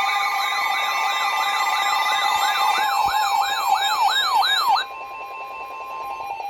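Electronic emergency-alert siren tone warbling about three times a second over steady held tones, its swings growing deeper before it cuts off suddenly about five seconds in. A single steady tone carries on for another second and a half.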